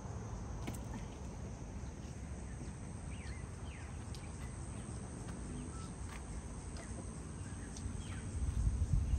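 Outdoor riverside ambience: a steady high-pitched insect drone, with birds giving a few short falling chirps. A low rumble runs beneath and swells near the end.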